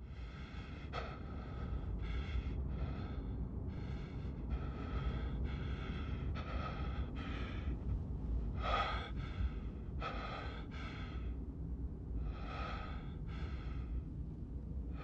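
A man breathing hard and fast in short, ragged gasps, about one breath a second, over the steady low rumble of a car's cabin on the road. It is laboured, distressed breathing, which he puts down to stress.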